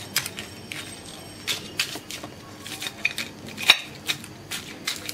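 A small knife cutting slits into once-fried, batter-coated chicken leg pieces on a ceramic plate: irregular sharp clicks and scrapes, about two a second, as the blade goes through the crisp crust and knocks the plate.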